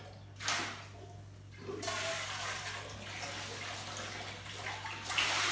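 Water poured and splashed from a metal pot into a plastic basin: a short splash about half a second in, a longer pour from about two seconds in, and a louder splash near the end.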